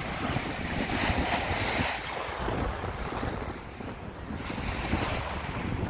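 Choppy sea waves washing onto a pebble shore, with gusty wind buffeting the microphone.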